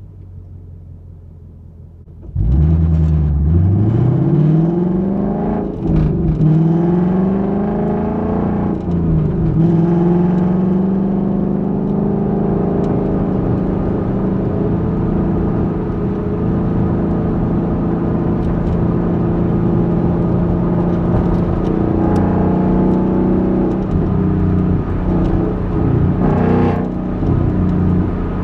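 2021 Ford Mustang GT's 5.0-litre V8 exhaust, heard from inside the trunk: quiet for about two seconds, then it comes on suddenly under acceleration, rising in pitch through two gear changes. It then settles into a steady cruise for the rest of the time.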